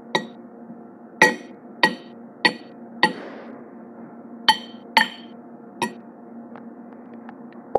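Tableware being tapped: about eight sharp clinks at uneven intervals, each ringing briefly, then a few faint ticks near the end.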